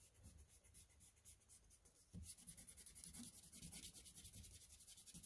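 Eraser rubbed quickly back and forth on printer paper clipped to a clipboard, erasing pencil lines. The faint scrubbing turns into a fast, even run of strokes about two seconds in.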